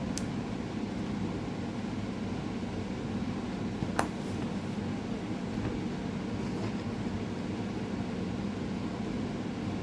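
Steady low mechanical room hum, with one sharp click about four seconds in and a faint tick near the start.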